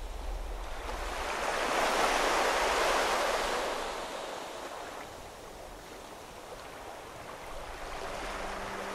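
Surf breaking against a rocky shore below cliffs: a wash of waves that swells over about two seconds, ebbs away, then builds again near the end.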